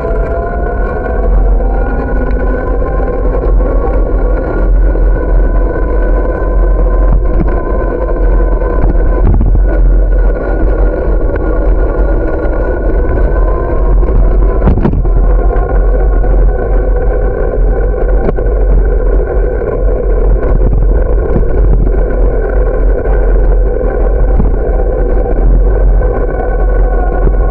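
Loud wind rumble on the microphone of a moving bicycle, over a steady droning hum whose pitch rises slightly in the first couple of seconds.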